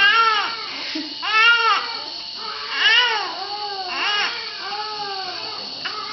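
Infant crying: a string of short wailing cries, each rising and then falling in pitch, about five in a row, loudest in the first half.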